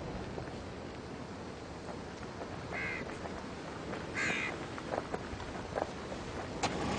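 A steady wash of sea surf, with a bird giving two short harsh calls about a second and a half apart.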